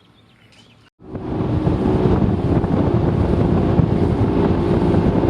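Bass boat's outboard motor running at speed with wind rushing over the microphone, a steady hum under loud rushing noise. It starts abruptly about a second in.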